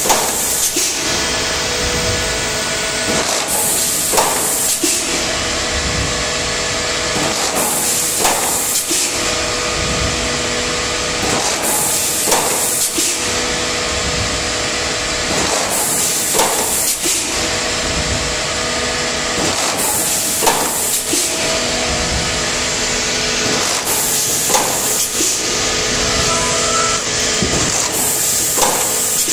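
Plastic sheet thermoforming machine running steadily while forming polypropylene fast food tray lids. A hiss of air and a short knock come about every four seconds, one per machine cycle, over a steady hum.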